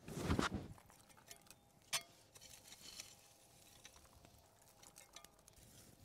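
Open wood fire crackling, with scattered sharp pops, the loudest about two seconds in. A brief scraping rustle at the start.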